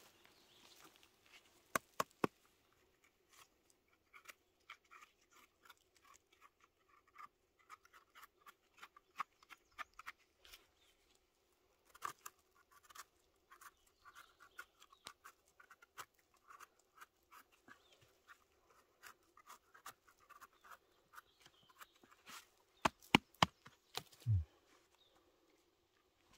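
Faint scattered clicks and scratches of someone moving through and scraping at forest litter, heaviest about two seconds in, near the middle and near the end, over faint repeated high chirping.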